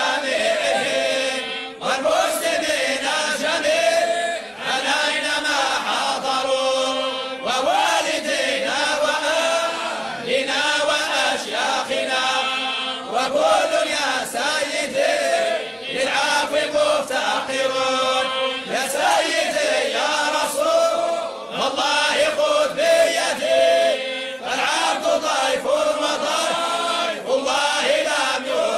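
Arabic devotional chant: a supplication poem to God asking forgiveness, sung in long melodic phrases with held notes and brief pauses between lines.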